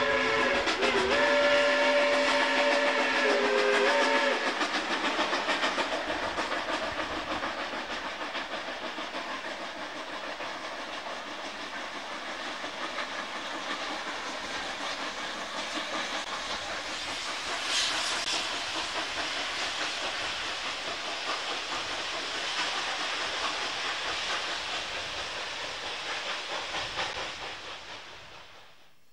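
Steam locomotive whistle sounding a chord of several notes in short blasts, ending about four seconds in. After it comes the steady exhaust and hiss of steam from the double-headed K-37 and K-36 Mikado locomotives working upgrade, fading away near the end.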